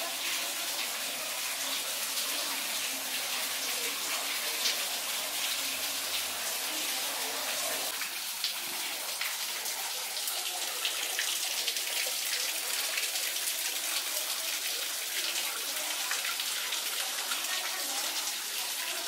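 Running water splashing steadily into stone-lined pools and channels, a continuous even rush.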